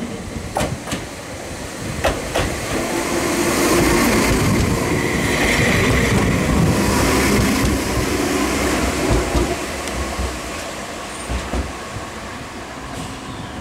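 Enoshima Electric Railway train passing close by at low speed on a sharp curve: wheels clicking over rail joints, a steady hum from the running gear, and a brief high wheel squeal about five seconds in as it goes by. The sound fades as the train moves off.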